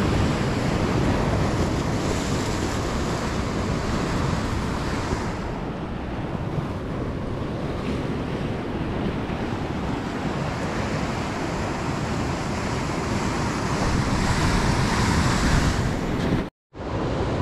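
Surf breaking and washing up a beach, with wind buffeting the microphone in a steady low rumble. The wash swells twice, a couple of seconds in and again near the end, and the sound cuts out for a moment just before the end.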